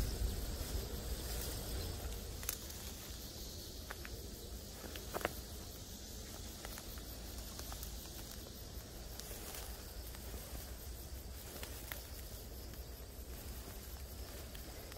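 Weeds rustling and a few sharp snips of hand shears as bush clover stems are cut, over a steady high chirring of insects in the grass and a low, constant rumble.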